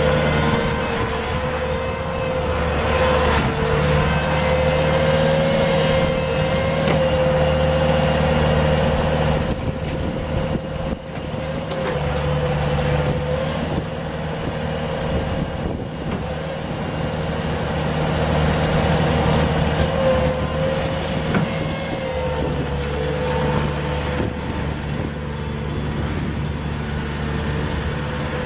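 Bobcat T250 rubber-track skid steer loader's diesel engine running, with a steady whine above it that wavers in pitch and changes in level as the machine is worked.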